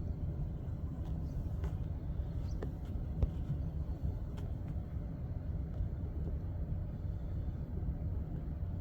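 Steady low outdoor background rumble, with a few faint short ticks in the first half.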